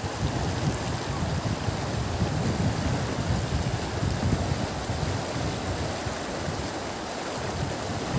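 Steady rush of flowing river water, with wind buffeting the microphone in low, uneven gusts.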